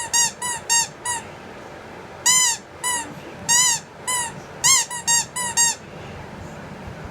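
Squeaky toy squeezed over and over: about a dozen short, high squeaks, each rising then falling in pitch, in quick runs of two to five, stopping about six seconds in.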